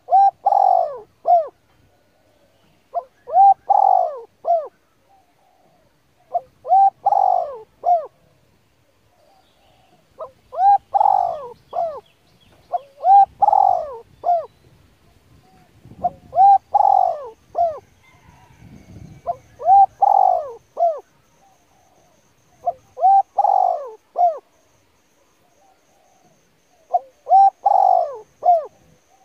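A bird cooing in repeated phrases, about nine times, roughly once every three seconds; each phrase is a short note, a longer louder one, then a short one.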